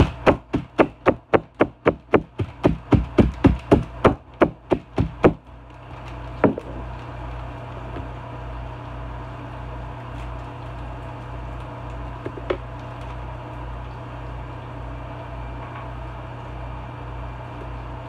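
A green shaker canister being shaken and knocked to get the contents out: a rapid run of about two dozen sharp knocks, four or five a second, that stops after about five seconds. After that only a steady low hum remains, with two single knocks later on.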